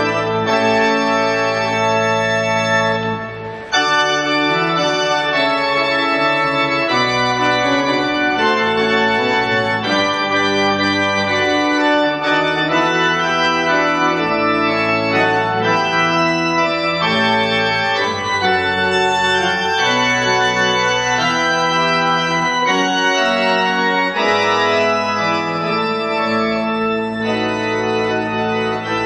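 Organ playing held, sustained chords that change every second or two, with a short dip in level about three and a half seconds in.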